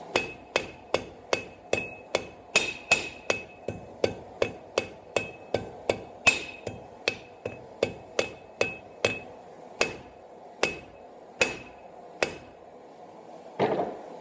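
Hand hammer striking a hot steel bar on an anvil, drawing out a taper, about three blows a second, each with a short high ring. The blows slow to four spaced strikes after about nine seconds, then a duller knock comes near the end.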